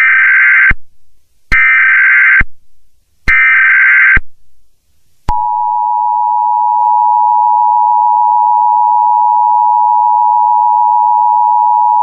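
Emergency Alert System test tones. First come three short bursts of the digital SAME header data, each just under a second long. About five seconds in, the steady two-tone EAS attention signal (853 and 960 Hz together) starts and holds.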